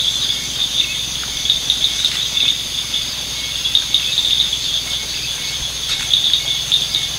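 Dense insect chorus of crickets: a steady, high, shrill trill with rapid pulsing chirps through it.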